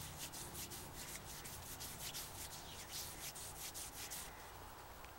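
Bare hand rubbing boiled linseed oil into a wooden walking stick: quick, even back-and-forth strokes, about four or five a second, that stop about four seconds in.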